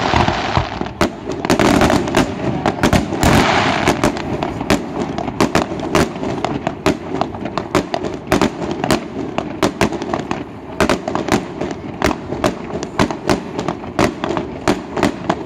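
Fireworks display: a rapid string of sharp bangs from bursting shells, two or three a second, over a hissing crackle that is strongest during the first few seconds.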